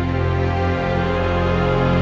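Theme music for a logo intro: a sustained chord that slowly swells.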